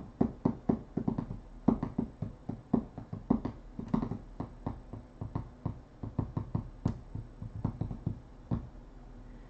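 A rapid, irregular run of short, sharp knocks close to the microphone, several a second, thinning out and stopping shortly before the end.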